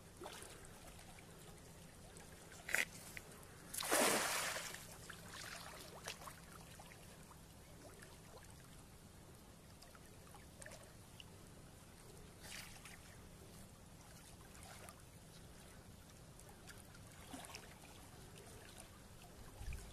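Splashing as a fishing net goes into river water: a short splash nearly three seconds in, a louder, longer splash about four seconds in, then a few faint splashes and trickles.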